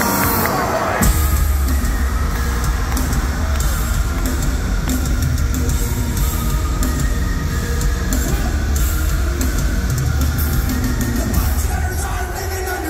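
A live heavy rock band playing loud through a concert PA. The full band, heavy bass and drums included, comes in about a second in and keeps playing.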